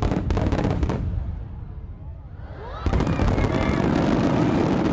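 Aerial fireworks: a quick run of sharp bangs from shells bursting in the first second, then after about three seconds a dense barrage of bangs and crackling, with a few rising whistles as more shells go up.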